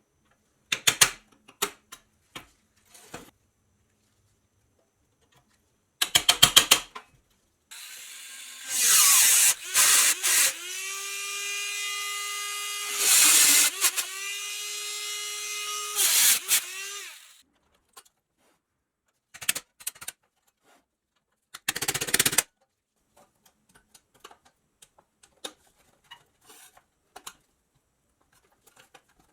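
A small electric power tool spins up, runs at a steady pitch for about nine seconds with two brief dips in speed, and winds down. Scattered clicks come before and after, including a quick run of clicks a few seconds before the motor starts.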